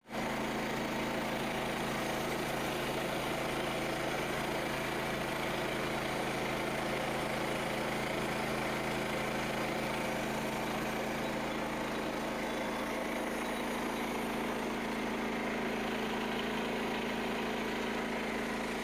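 An engine idling steadily at an even pitch, starting suddenly at the beginning.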